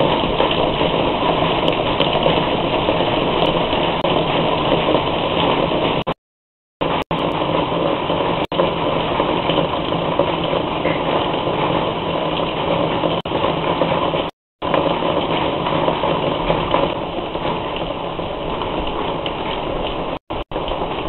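Rain falling, heard as a steady hiss through a CCTV camera's small microphone, with the sound cutting out completely for brief moments about six seconds in, about fourteen seconds in and twice near the end.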